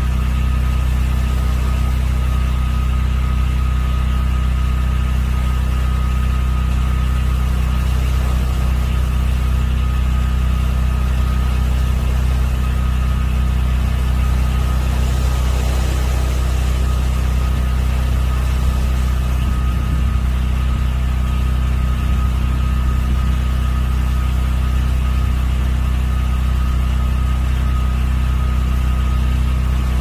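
Steady low engine hum, like a motor idling, with a thin high whine over it; it does not change.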